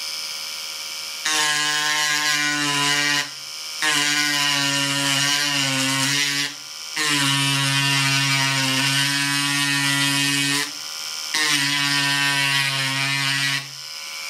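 Amtech 3.6 V USB rechargeable mini engraver running at its middle speed of about 10,000 rpm, its bit engraving a metal fridge magnet. A steady high whir, with four stretches of louder, buzzing hum a few seconds long each, broken by short quieter gaps.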